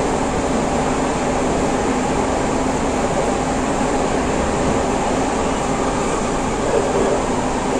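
Siemens C651 metro train running steadily in a tunnel, heard from inside the passenger car: a constant rumble of wheels on rail with a faint steady hum.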